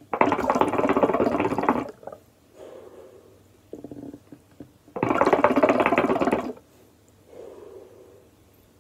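Shisha water bubbling and gurgling in the glass base as smoke is drawn through the hose, in two long pulls of about a second and a half each.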